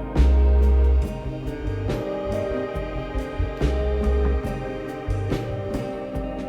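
Music with drums and a melody, in which a heavy, loud bass note sounds for about a second near the start and again just past the middle.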